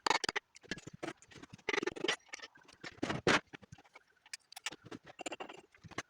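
Sped-up disassembly of a Dodge 318 V8 engine: a rapid, irregular run of clicks, clinks and knocks from hand tools and metal engine parts.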